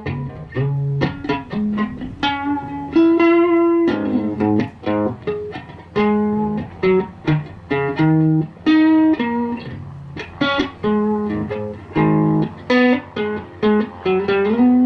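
Electric guitar (a Telecaster with microcoil pickups) played through a Richter 5E3 tube amp with 6K6 power tubes, turned up loud. It plays a run of single notes, some held for about a second and others clipped short.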